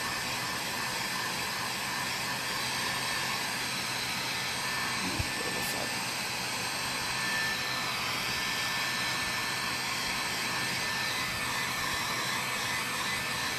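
Steady whooshing hiss of an electric blower-type appliance running, with a faint steady hum under it; one soft knock about five seconds in.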